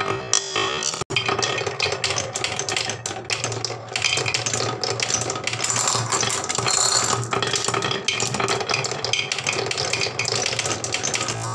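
Several marbles rolling down wooden marble-run rails and rattling over the raised wooden dowel bumps of a HABA wave slope: a dense, rapid clatter of clicks. The sound cuts out for a moment about a second in.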